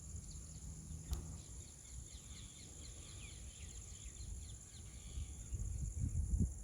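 Steady high-pitched buzzing of insects, with a run of quick, short bird chirps over it. One sharp click comes about a second in, and a low rumble on the microphone grows near the end.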